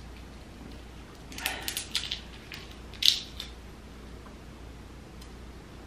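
Shell of a cooked tiger prawn crackling as it is peeled off by hand: a run of small crackles about a second and a half in, then one louder snap about three seconds in.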